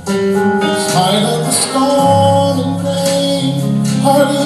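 Gospel band music: guitar and held chords with cymbal strokes, in a gap between sung lines.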